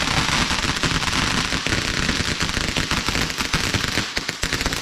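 Garden firework burning with a dense, continuous crackling hiss, many rapid pops running together without a break.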